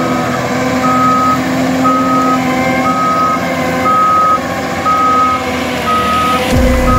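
Reversing alarm on a John Deere 1470G wheeled harvester beeping about once a second, each beep about half a second long, over the steady running of the machine's diesel engine. A deep low rumble comes in near the end.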